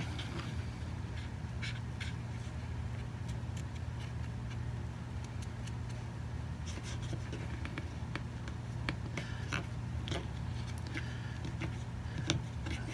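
Cotton swab dipped in white vinegar scrubbing alkaline battery corrosion out of the battery compartment of an Olympus WS-6005 digital voice recorder: faint, irregular scratching strokes over a steady low hum.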